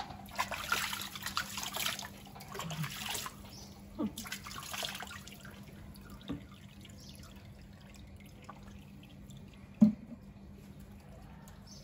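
Water splashing and sloshing in a plastic tub around a wet Siberian husky's legs, in two spells in the first half, then quieter with drips. A single sharp knock near the end.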